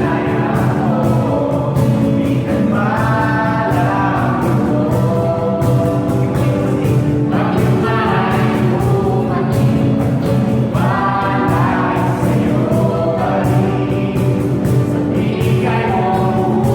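Worship song: a group of voices singing a gospel-style praise song over a band with a steady beat.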